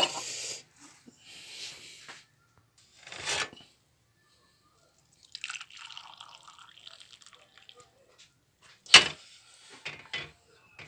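Chai poured from a steel saucepan through a metal tea strainer into a cup, a couple of seconds of splashing pour, with clinks of the strainer and utensils before it. Near the end the steel pot is set down on the gas stove with a sharp clank, the loudest sound.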